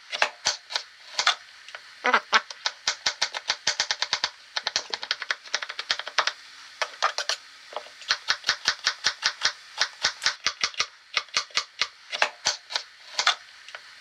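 Kitchen knife chopping quickly on a cutting board, in fast runs of strokes broken by short pauses.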